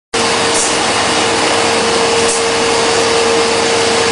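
Steady, loud machine noise: an even rushing hiss with one constant hum under it.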